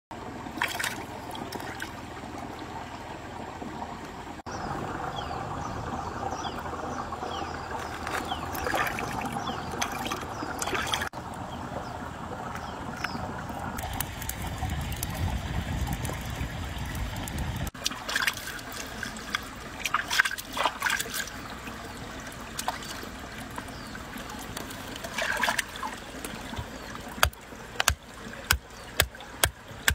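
Shallow stream trickling over stones, with scattered clicks. Near the end, a hand-held stone pounds fresh ginger on a rock: sharp knocks about two a second.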